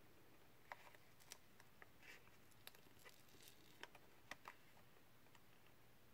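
Faint, scattered small clicks and scrapes of a Fimi TX10 drone controller's plastic case and rubber side grip being handled as the grip is pried off, about eight light ticks spread irregularly over otherwise near-silent room tone.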